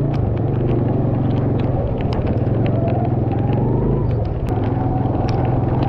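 Motor vehicle engine running steadily close by, a low hum with scattered sharp ticks over it. A faint rising whine comes in about three seconds in and fades near four seconds.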